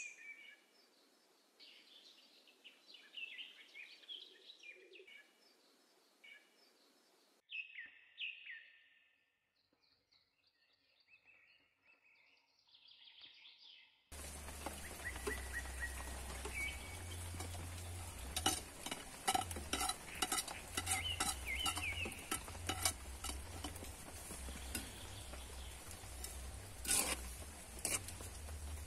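Birds chirping faintly, then, about halfway through, a metal ladle stirring and scraping in a clay pot of onions and chillies frying over a wood fire: a steady sizzle with many quick clinks of the ladle against the pot.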